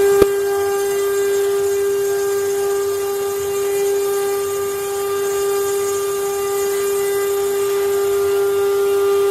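CNC wood-carving router's spindle running at speed, a steady high whine over a hiss, with one sharp click just after the start.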